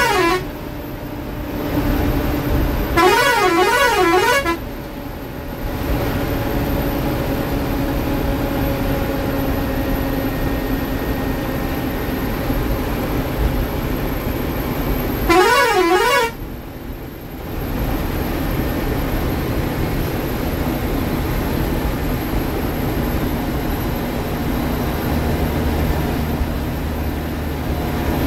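Ashok Leyland sleeper bus running at highway speed, heard from the driver's cabin as a steady engine and road noise. A loud horn that warbles up and down in pitch sounds three times: briefly at the start, for about a second and a half around three seconds in, and again about sixteen seconds in.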